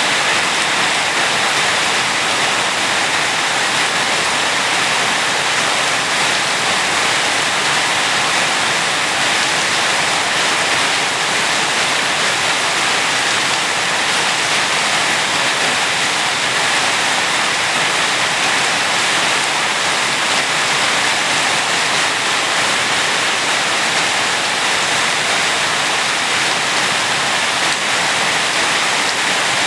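Steady, heavy rainfall, an even hiss with no distinct drops or other events.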